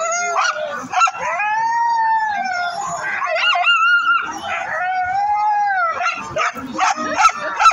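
A team of sled dogs howling and yelping, eager to run. Several long howls rise and fall over the first few seconds, then short, quick yips and barks follow near the end.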